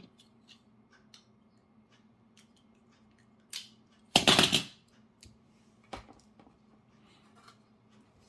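Kapton tape being handled and cut: light clicks and taps, then a brief rasping rip about four seconds in as tape is pulled from the roll.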